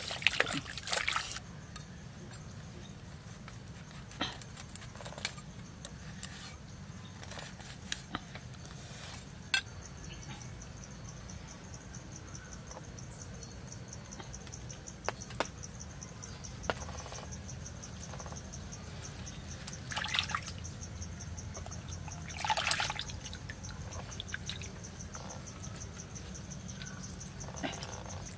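Water splashing as frogs are washed by hand in a basin at the start, then a steady pulsing insect trill from about a third of the way in, with scattered light clicks and knocks.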